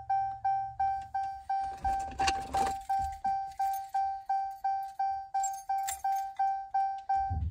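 Dodge Challenger's dashboard warning chime dinging steadily at about three quick single-tone dings a second, with the ignition switched on and the engine not yet running.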